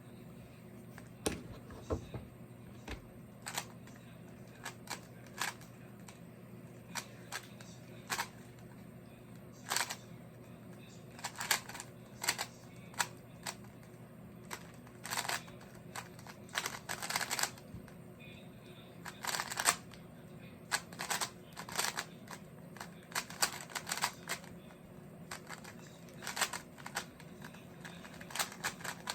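Plastic Rubik's cube being turned fast during a timed solve: irregular clicks and clacks of the layers snapping round, coming in quick flurries.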